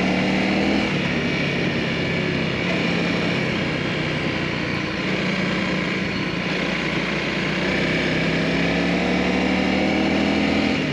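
Motorcycle engine running under way, its pitch shifting about a second in and then climbing slowly through the last few seconds as the bike accelerates.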